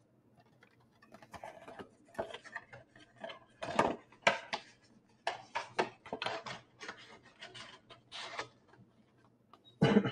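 Trading-card packaging being handled: irregular crinkling and rustling of pack wrappers and box cardboard, short crackles coming in quick succession.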